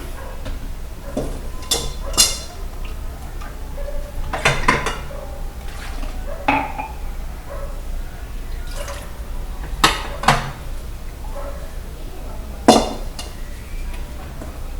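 Dishes and cutlery being washed by hand, clinking against each other in sharp, irregular knocks, with some dripping water.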